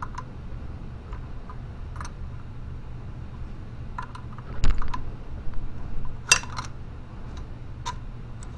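Scattered metallic clicks and knocks of hand tools working on a 2015 Ski-Doo Summit 800 E-TEC snowmobile's clutch while the belt deflection adjuster is loosened. There is a louder knock about halfway through and a quick cluster of clicks soon after, over a steady low hum.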